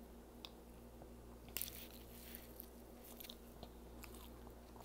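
Close-up mouth sounds of someone eating: quiet chewing with a few short crunchy bites and clicks, the loudest about a second and a half in.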